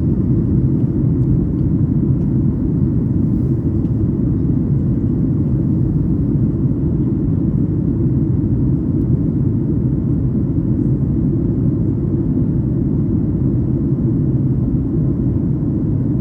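Steady low rumble of engine and airflow noise inside the cabin of a Boeing 737-8200 airliner, airborne after takeoff.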